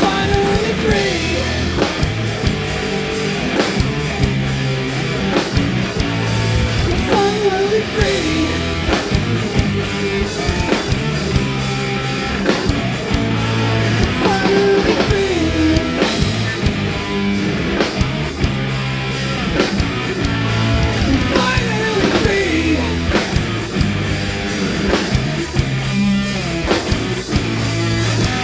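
A rock band playing live at full volume: electric guitars, bass and a drum kit driving a steady beat.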